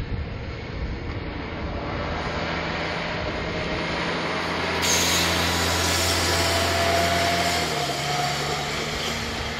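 PESA diesel railbus passing close by: its engine note grows louder, the rush of wheels on rails comes in sharply about halfway through, and the engine pitch drops near the end as it goes past.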